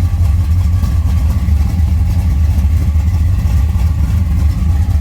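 A 383 stroker small-block V8 with Flowmaster exhaust idling steadily, with a deep, even low-end rumble.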